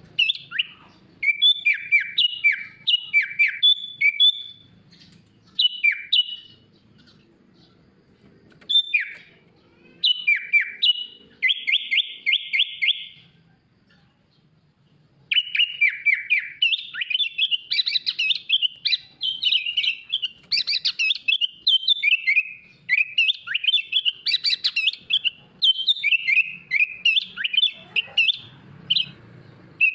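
Sooty-headed bulbul singing a fast, varied song of sharp chirps and down-slurred whistles, broken by a few buzzy trills. The song stops briefly twice and then runs on in a denser stretch.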